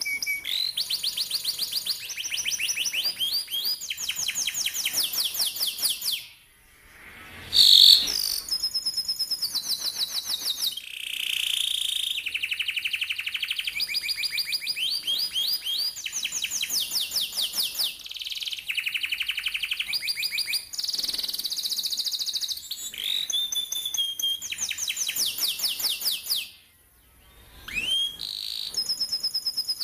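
Domestic canary singing a long rolled song: fast trills of rapid repeated notes, each roll held at one pitch before switching to a higher or lower one. It breaks off briefly twice, and the loudest sound is a sharp high note just before eight seconds in.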